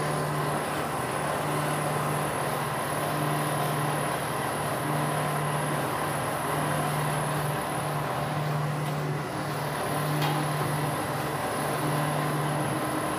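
Soap plodder running, its electric motor driving the screw that extrudes soap noodles through the die mesh. A steady machine noise with a low hum that pulses on and off about once a second.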